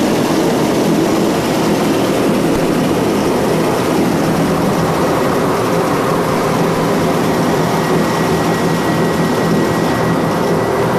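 SRN4 hovercraft's four Proteus gas turbines and propellers running in a loud, steady drone, heard inside the flight deck. A faint high whistle joins in near the end.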